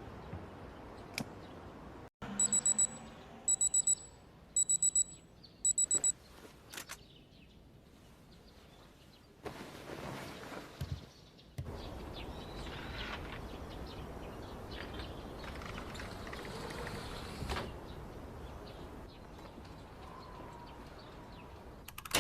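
Electronic alarm beeping in four quick clusters of rapid, high-pitched beeps, about one cluster a second, then stopping. Softer handling and rustling noises follow.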